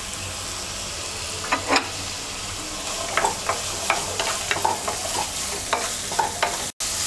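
Chopped onion, carrot, capsicum and yardlong beans sizzling in hot oil in a nonstick wok, stirred with a wooden spatula. A steady sizzle, with sharp knocks and scrapes of the spatula on the pan from about a second and a half in.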